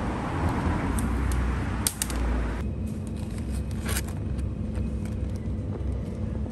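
Steady low rumble and hiss of background noise, with a few sharp clicks; the background changes abruptly about two and a half seconds in.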